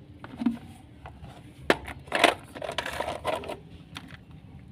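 Plastic toy vehicles knocking and scraping as they are handled and set down: a sharp click about a second and a half in, then a short run of clattering scrapes.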